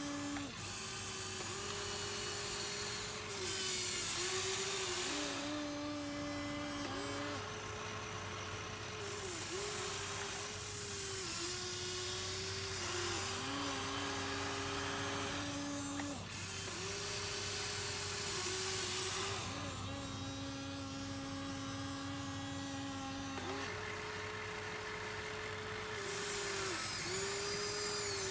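Electric motors of a Huina 1593 RC excavator whining as it works, the pitch jumping up and down between a few steady notes every second or two as the motors start, change and stop, with a high hiss coming and going.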